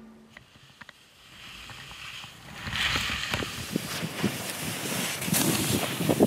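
Skis sliding and turning through snow on a steep descent, with a rush of wind: faint at first, the hiss grows loud about two and a half seconds in, and irregular scraping strokes from the turns follow.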